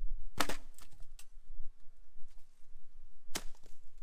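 Firewood logs thrown down from a 4WD's roof rack, each landing with a sharp wooden knock: a loud hit just after the start followed by a couple of smaller knocks, and another loud hit about three seconds later.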